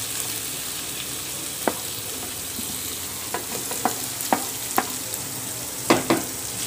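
Oil sizzling steadily in a nonstick kadai as grated carrot goes into a frying tempering of chana dal, chillies and herbs. A wooden spatula scrapes the carrot off a plate and knocks against the plate and pan edge several times, with two knocks close together near the end.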